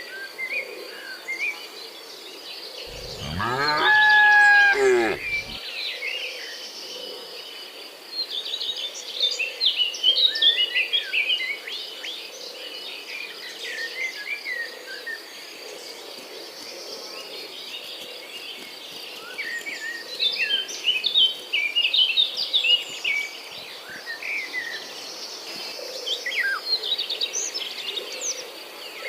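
A cow lets out one long moo about three seconds in. Birds chirp on and off through the rest, over a steady high insect trill.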